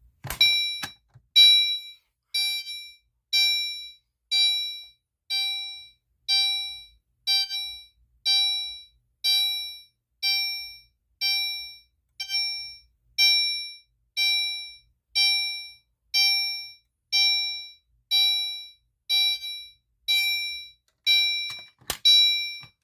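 Fire alarm horn sounding its continuous chime tone: a bright electronic ding repeated about once a second, each ding fading before the next, with a sharp click near the end.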